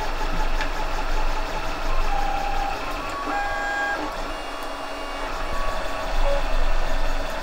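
3D printer running a print: its stepper motors whine in short tones that jump from pitch to pitch as the print head moves, over a steady mechanical whir.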